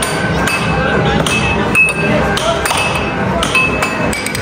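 Irregular sharp clinks of hard objects, a couple a second, several leaving a brief high ring, with a quick cluster of them near the end.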